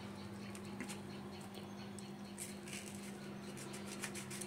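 Faint scratchy clicks and crackles of a utensil cutting through a crisp dosa-batter pizza, coming thicker in the second half, over a steady low hum.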